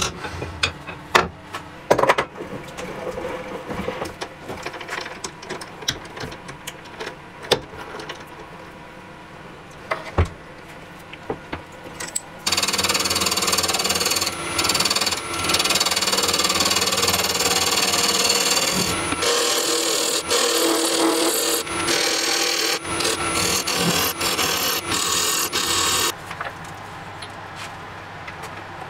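Clicks and knocks as a workpiece is handled and fitted onto a wood lathe. From about twelve seconds in, a turning tool cuts a spinning wood blank on the lathe: a loud, steady scraping cut with a few short breaks, which stops a few seconds before the end.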